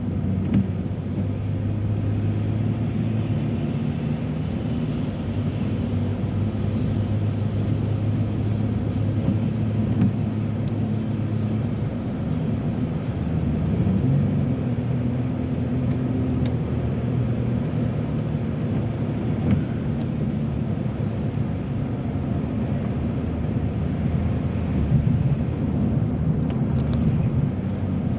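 A car driving on a wet, snowy road: a steady engine hum with tyre and road noise.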